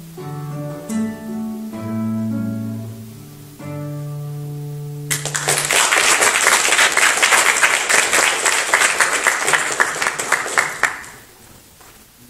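Classical guitar playing the last plucked notes of a piece, ending on a held low chord. Audience applause starts about five seconds in, runs for about six seconds as the loudest sound, and fades out near the end.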